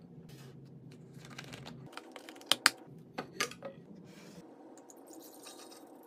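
Glass carafe and its lid being handled: a run of light clicks and taps, with four sharper clicks in the middle, then orange juice pouring into the glass carafe near the end.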